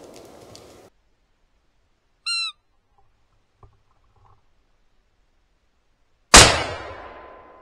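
A short, high call with a slight downward hook about two seconds in. Then, about six seconds in, a single hunting rifle shot cracks and echoes away slowly through the woods.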